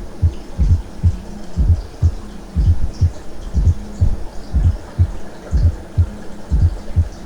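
Heart sounds with an atrial gallop: a fourth heart sound falls just before each first heart sound, in a repeating pattern of low thuds about once a second over a faint steady hum. The fourth sound comes from the left atrium contracting against a ventricle whose hypertrophy has reduced its capacity.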